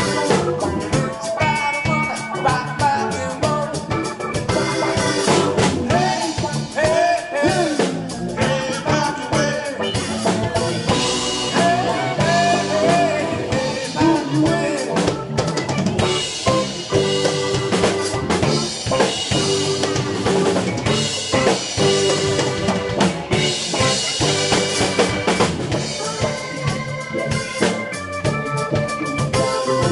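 Live band playing a New Orleans funk groove, with the drum kit to the fore over bass, electric guitars and keyboard.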